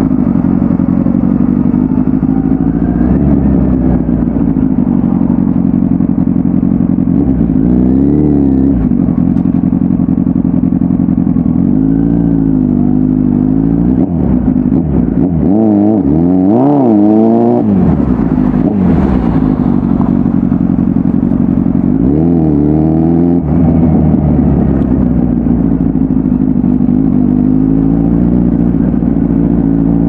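2009 Kawasaki Ninja ZX-10R's 1000cc inline-four engine through a full aftermarket exhaust, running at a mostly steady speed while riding. The engine note wavers down and back up several times, most of all near the middle, as the throttle is eased and reopened.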